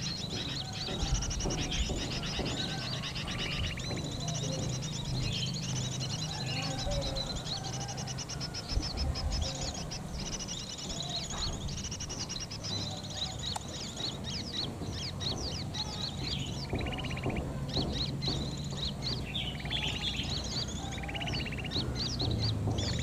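Dense, unbroken bird chirping: bulbul lure calls from an MP3 speaker, used to draw sooty-headed bulbuls to lime sticks. A low steady hum runs underneath.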